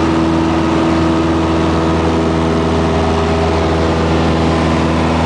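Piper Cherokee 180's four-cylinder Lycoming engine and propeller running at steady power in flight, a constant drone heard inside the cabin.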